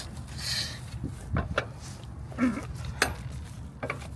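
A few separate metallic clinks and knocks from hand tools being handled during an oil-filter change on a skid steer loader, over a steady low hum.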